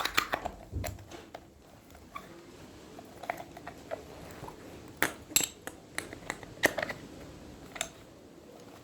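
Irregular metallic clicks and knocks of a motorcycle starter motor's housing and small parts being handled and fitted back together by hand.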